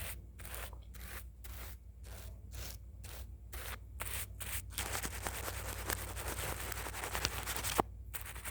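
Close-up ASMR drawing-tool strokes on the microphone: quick rhythmic scratchy strokes, about two and a half a second, turning about five seconds in into denser continuous scraping with a few light ticks.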